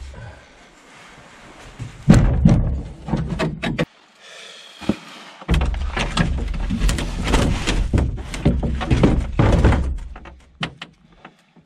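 Composite canoe hull being set down and gear loaded into it: hollow thunks and knocks over a low rumble of handling, in two busy stretches with a short quiet gap between.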